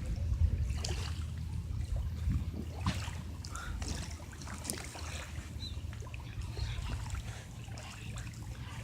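River water lapping and trickling at the bank over a steady low rumble, with scattered faint crackles.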